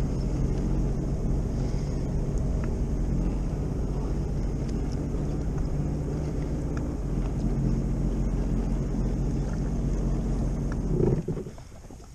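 2021 Sea-Doo Fish Pro personal watercraft's Rotax three-cylinder engine running steadily at low speed, then dropping away suddenly about eleven seconds in.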